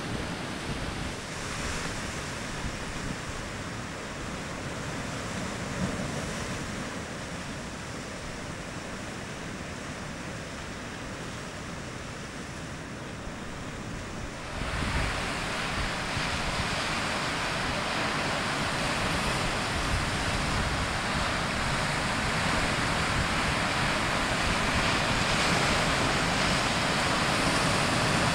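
Sea surf breaking and washing over rocks, a steady rushing noise that gets louder and brighter about halfway through.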